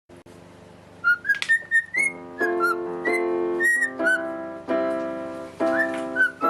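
Music: a short, gliding whistled melody, joined about two seconds in by sustained instrumental chords.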